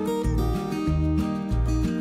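Background music: an acoustic guitar tune over a steady beat of low notes.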